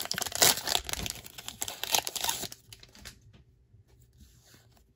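Foil wrapper of a Pokémon Shining Fates booster pack crinkling and tearing as it is ripped open by hand. The loud crackle stops about two and a half seconds in, leaving only faint rustling.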